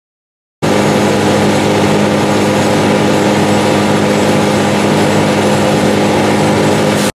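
Engine running steadily at idle, starting suddenly after a moment of silence and cutting off abruptly near the end.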